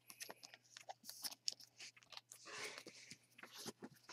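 Faint crinkling and clicking of a clear plastic card sleeve and trading cards being handled, with a soft rustle about two and a half seconds in.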